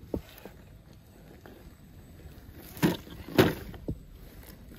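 Tamiya CC-02 Ford Bronco RC crawler picking its way over rocks: a few short knocks and scrapes as its tyres and chassis hit stone, the loudest two a little under three seconds in and half a second later.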